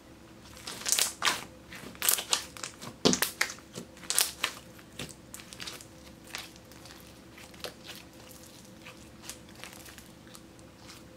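Thick, glossy black slime, mixed with eyeshadow and glitter, being stretched, pulled apart and folded by hand, giving a run of sharp crackling clicks and pops. The pops come thick and loud over the first few seconds and thin out after that.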